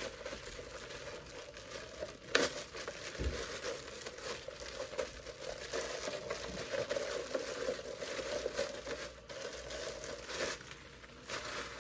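Plastic packaging crinkling and rustling as it is handled, with a few sharper clicks and rattles.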